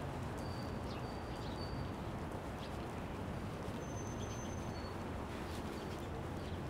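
City street ambience: a steady hum of traffic with a few short, high bird whistles scattered through it.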